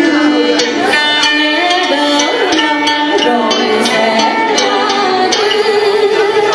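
A woman singing a Vietnamese traditional-style song into a microphone, with live instrumental accompaniment; the melody is held in long, wavering notes.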